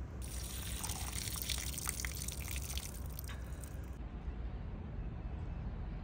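Water spraying from a handheld nozzle onto grass: a hissing spray with spattering drops that stops about four seconds in. A steady low rumble runs underneath.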